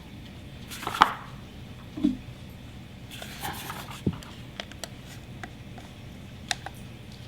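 Scattered light clicks and taps of hands handling small plastic gadgets, over a low steady hum.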